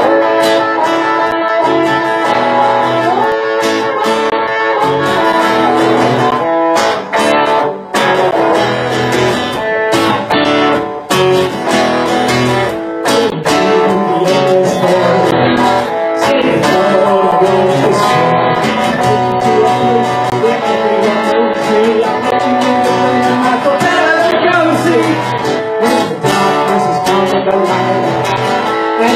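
Live guitar duo playing a song: electric guitar with strummed acoustic guitar, and a man singing at times.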